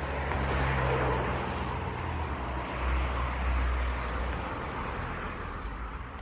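A motor vehicle passing on the street: a low engine hum with road and tyre noise that swells within the first second and fades over the last couple of seconds.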